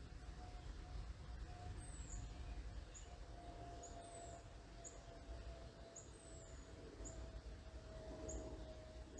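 Small bird giving a short high chirp about once a second, now and then a down-slurred note, over the faint steady hum of a distant aircraft that slowly drops in pitch and a low rumble of background noise.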